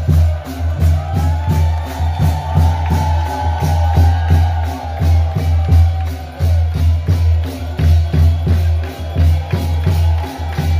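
Ritual percussion music: drums and jingling, rattling percussion beating fast and steadily. A long wavering tone rises over it for a few seconds about a second in.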